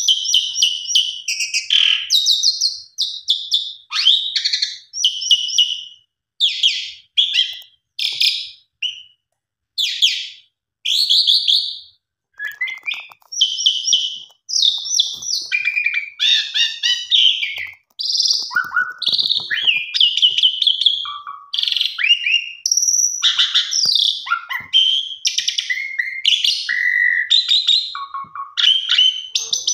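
Asian pied starling (jalak suren) singing a long, varied song: rapid runs of high whistles and harsh, rattling chatter in quick phrases with short pauses between them, the pauses longest in the first half.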